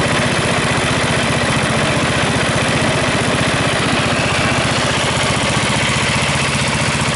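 A Countax ride-on mower's 15.5 hp engine running steadily, with an even firing beat and a constant level.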